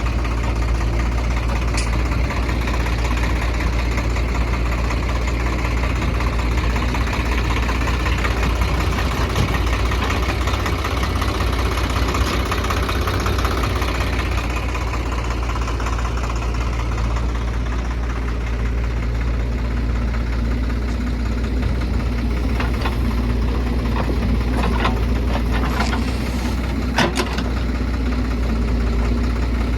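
Heavy diesel engine running steadily at worksite loading, with a few sharp metallic knocks about three quarters of the way through.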